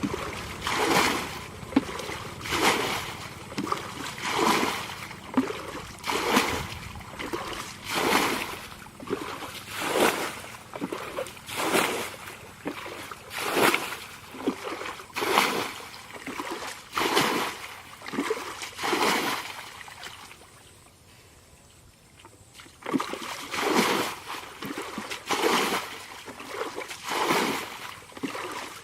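Water splashing in regular strokes, about one every two seconds. There is a pause of a few seconds, then the strokes resume a little faster.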